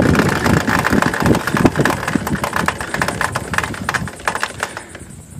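Motor trike engine running as the trike rides along, with wind buffeting the microphone; the sound fades toward the end.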